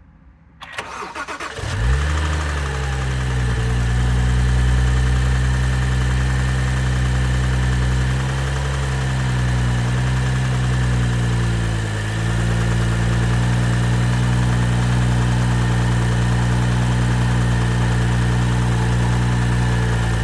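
BMW 135i's N55 3.0-litre turbocharged straight-six cranked by the starter, catching about two seconds in, then idling steadily. The engine has bearing damage (Lagerschaden), which typically shows as knocking or grinding from the engine.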